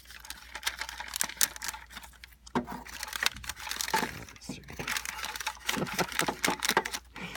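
Cash register paper tape and its plastic parts being handled: irregular clicks, small knocks and papery rustling as the roll is seated and threaded.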